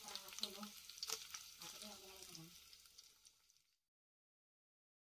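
Chicken skin and garlic frying in oil in a nonstick pan, crackling and sizzling as a spatula stirs them, now that the broth has cooked off and only oil is left. The sizzle fades out about three and a half seconds in, giving way to silence.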